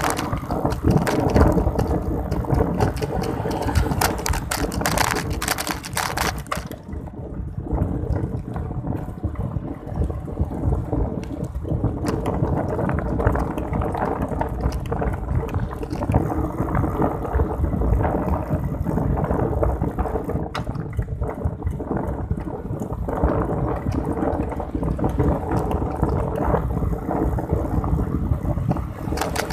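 Wind buffeting the microphone of a hand-held phone during a ride: a steady low rumble, gustier and crackling for the first six seconds or so, with a faint steady hum underneath.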